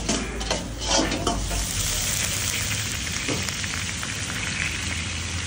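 Lamb and potatoes sizzling in sheep-tail fat in a kazan, a steady frying hiss. A few metal clanks from the lid and skimmer in the first second and a half.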